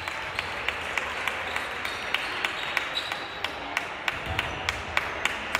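Rhythmic clapping in the gym, about three claps a second, over the steady murmur of the crowd.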